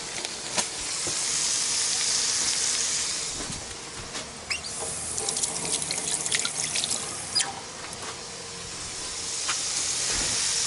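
Fish steaks sizzling in oil in a frying pan. From about four seconds in, a tap runs into a stainless-steel sink as a hand is rinsed, with splashing and a quick run of clicks and ticks, and the sizzling comes back near the end.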